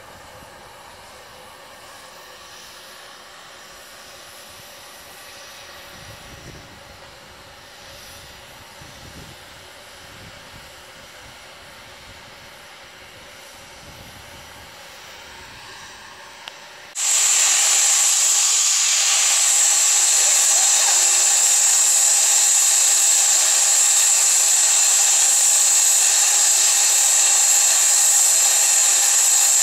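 Faint background outdoors, then about halfway through a steam tank locomotive starts releasing steam: a sudden, loud, steady high hiss that keeps going.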